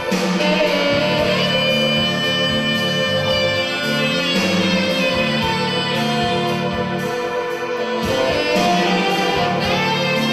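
Instrumental show music: held melody notes over a pulsing bass line, playing on without a break.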